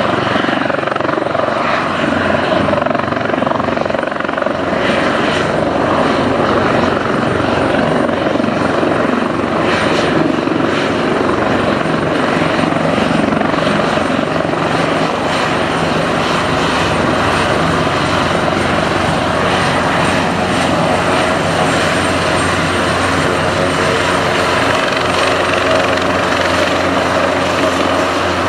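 Airbus Helicopters H225's twin turboshaft engines and main rotor running steadily on the ground as the helicopter taxis. Loud and unbroken, with several steady tones held under the rotor and engine noise.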